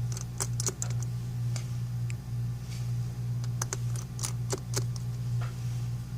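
Small, sharp clicks and taps of hand tools working on iPhone 5c screen parts while the home button is removed, coming in irregular clusters. A steady low hum runs underneath.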